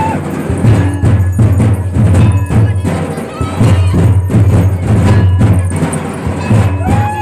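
Festival music driven by drums beating a steady rhythm, with a few short arching high notes over it.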